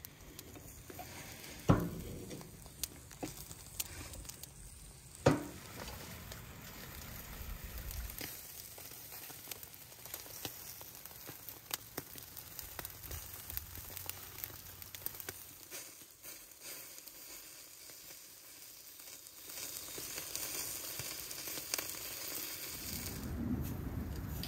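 Skewered kebabs sizzling and crackling over hot charcoal on a grill, with two sharp metal knocks of the skewers being handled in the first few seconds. A low wind rumble comes up near the end.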